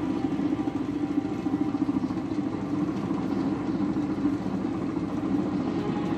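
Chinook tandem-rotor helicopter in flight: steady, continuous rotor and turbine engine noise.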